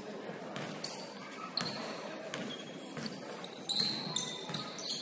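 Basketball bouncing on a hardwood gym floor, three bounces about three-quarters of a second apart, then short high sneaker squeaks on the court near the end, over a murmur of voices in the large hall.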